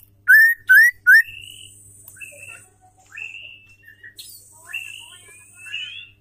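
Female white-rumped shama calling: three loud rising whistles in quick succession, then a string of softer rising whistled notes and short chirps, with a thin high hiss under some of them.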